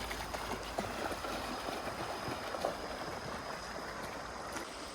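A stream running full after rain, flowing steadily, with a few small splashes in the first couple of seconds.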